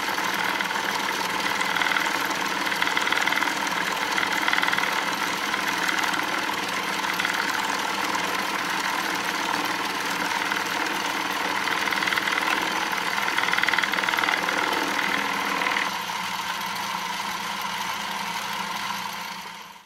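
Atlas lathe running at speed with a router bit in the chuck, milling a slot in an aluminium block on the cross slide: a steady machine hum under the higher sound of the bit cutting metal, which swells and eases as the cut goes on. The cutting sound falls away about sixteen seconds in, leaving the lathe running.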